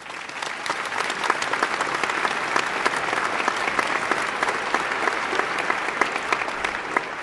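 Crowd applause, swelling in over the first second and then holding steady as a dense patter of many separate claps.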